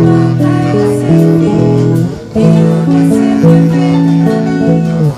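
Guitar playing chords, each held for about a second before moving to the next, with a short break about two seconds in.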